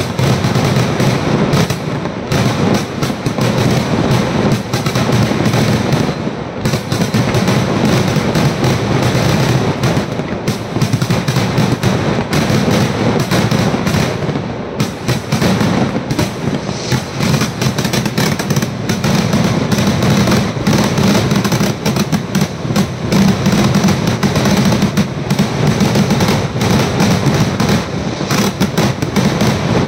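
Kerala temple-festival fireworks (vedikkettu): a dense, unbroken barrage of loud bangs and crackling, with shells bursting over a low rumble. It eases slightly twice before building again.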